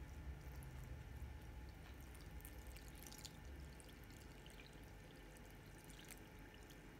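Faint trickle of warm water poured from a steel measuring cup onto flour in a plastic tub.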